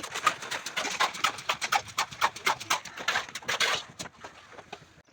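A rapid series of sharp knocks or taps, about seven a second, that thins out and stops about four seconds in.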